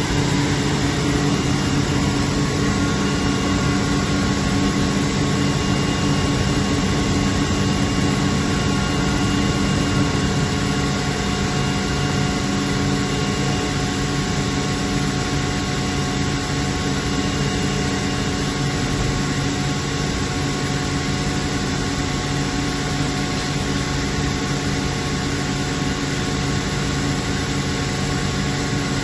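Atlas Copco GA11VSD FF oil-injected rotary screw air compressor running steadily and delivering air at about 12.7 bar: a constant machine hum with several steady tones.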